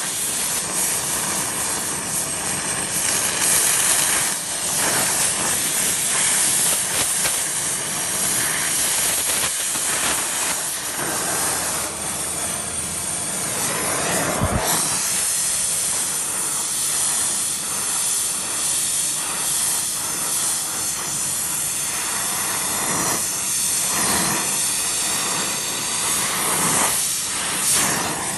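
Steady loud gas hiss while copper pipe is brazed with nitrogen flowing through it: the torch flame and the nitrogen purge.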